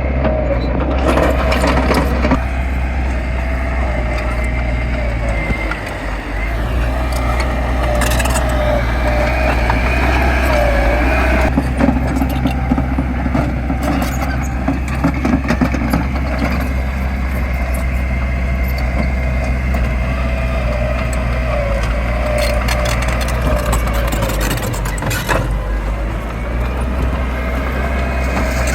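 Heavy diesel construction machinery running steadily, with many scattered knocks and clanks over a constant low engine drone.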